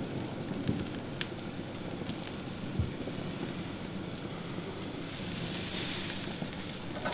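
Wood campfire burning with a steady crackle and a few sharp pops.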